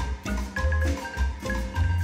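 Background music: a melody of short, quickly fading struck notes over repeated low bass pulses.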